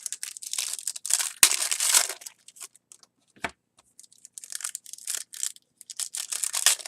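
Foil trading-card pack wrapper crinkling and tearing as a pack is opened and handled, in irregular bursts with a few sharp clicks; the loudest stretch is about one to two seconds in.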